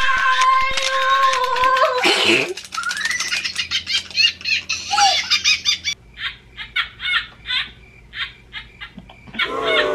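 A held steady tone for about two seconds, then laughter: gliding giggles, followed by short, evenly spaced bursts of laughing.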